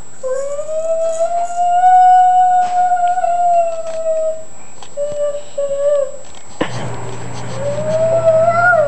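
A child's voice holding one long high note for about four seconds, then two short notes, then another note that rises and falls. A low steady hum starts suddenly about two-thirds of the way through.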